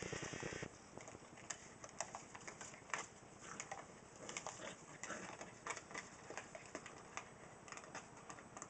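Faint, irregular clicks and taps of a small plastic plant pot being carried and pushed around on grass by a corgi puppy, knocking and scraping as she plays with it. A denser rattling flurry comes in the first second.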